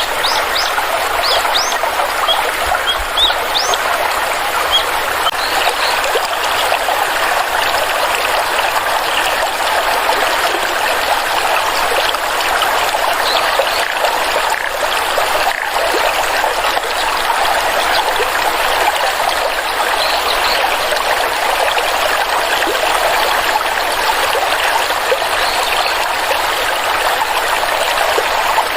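Water stream flowing, a steady trickling rush, with a few brief high chirps in the first few seconds.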